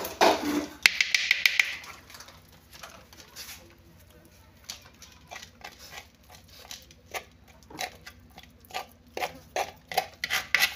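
A hand stirring and mashing ogiri and ground pepper into thick palm-oil ncha paste in a clay pot: scattered soft clicks and squelches, busier in the last few seconds.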